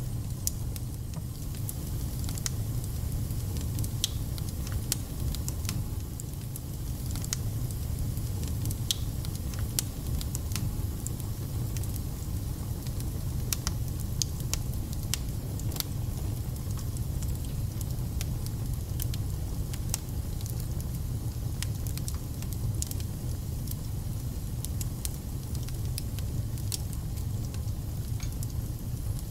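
Wood fire burning in a fireplace: a steady low rumble with frequent sharp crackles and spits.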